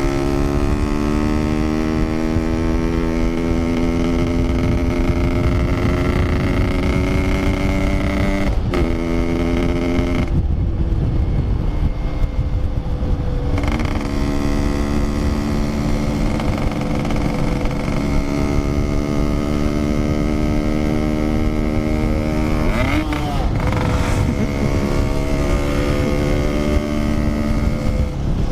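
Yamaha RX-King 135cc two-stroke single-cylinder motorcycle engine running under way at a steady cruising note. The note breaks briefly about 9, 14 and 23 seconds in as the throttle is eased and picked up again. The engine goes softer for about three seconds after the 10-second mark.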